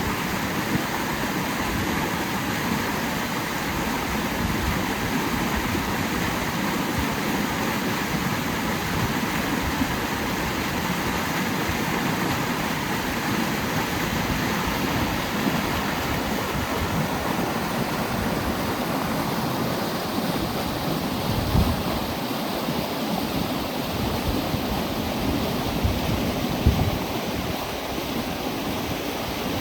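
Creek water rushing steadily, with two brief low thumps in the second half.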